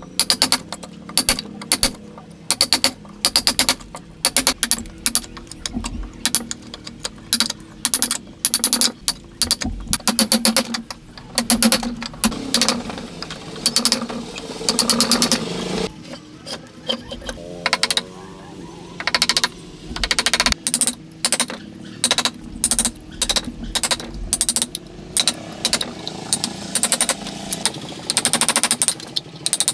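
Hand tools working wood: repeated bursts of rapid, sharp strokes, each burst lasting about a second, with short pauses between.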